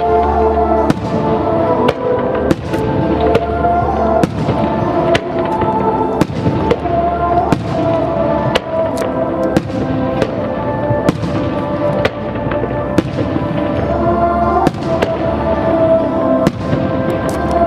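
Fireworks bursting in quick succession, sharp bangs every second or so, over music with long held notes.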